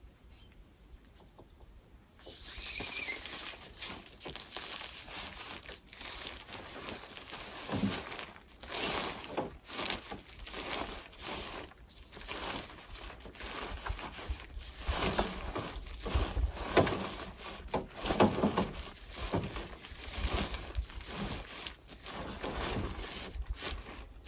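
Rightline truck-bed tent's nylon fabric rustling and crinkling as a tent pole is threaded through its sleeve, with irregular scrapes and taps, starting about two seconds in.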